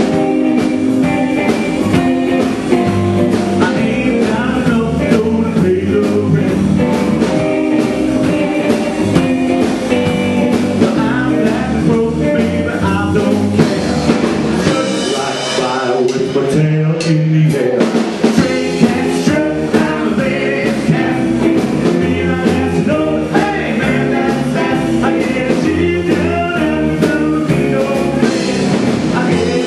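Rockabilly band playing live on upright bass, electric guitars and drums, with vocals. The bass drops out briefly about sixteen seconds in.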